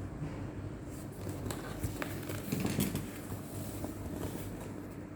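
Light handling noise: a few soft clicks and taps over a steady low room hum.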